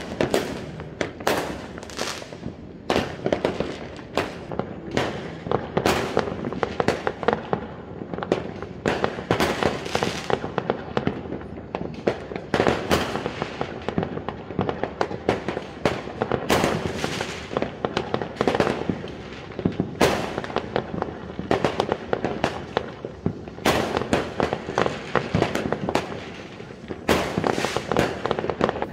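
Many fireworks going off at once: a dense run of sharp bangs, one or two a second, over a constant din of further bursts.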